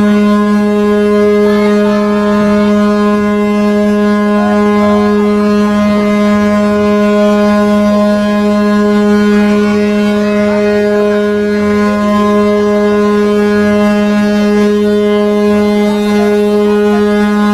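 The second Ogasawara Maru's ship's horn sounding one long, unbroken blast: a deep, steady tone, the extra-long farewell whistle given on the ship's departure.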